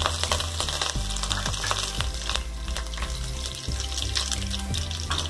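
Mustard seeds, fenugreek seeds and curry leaves sizzling and crackling in hot oil in a kadai, a tempering for a South Indian brinjal gravy.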